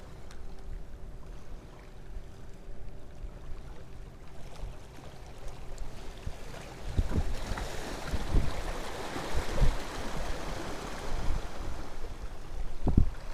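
Small sea waves lapping and splashing against rocks at the water's edge. The wash grows louder and fuller about halfway through, with a few low thumps.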